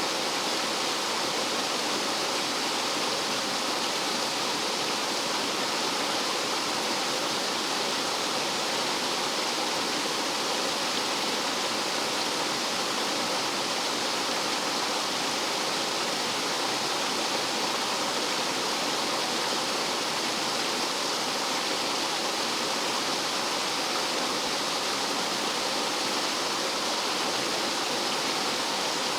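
Rough mountain-valley stream rushing and tumbling over rocks like a small waterfall, a steady, unbroken rush of water.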